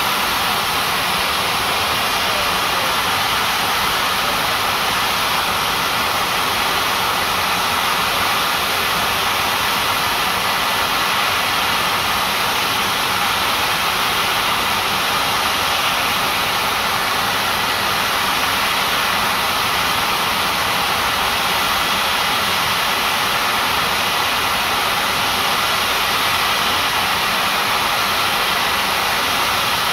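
Steam hissing steadily and loudly from the standing LMS Jubilee class steam locomotive 45596 Bahamas, an unbroken roar of escaping steam that holds the same level throughout.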